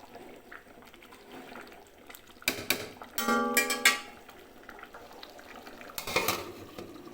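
Metal cookware clattering twice, a utensil or lid knocking against the cooking pot. After the first knock comes a short ringing tone that holds a steady pitch for almost a second.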